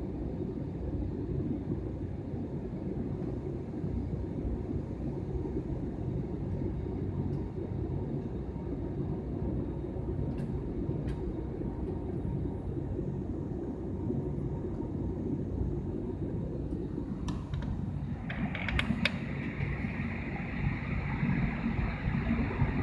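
Steady low rumble of an airliner heard from inside the passenger cabin, with a few scattered clicks. Near the end a higher hiss joins and the sound grows louder.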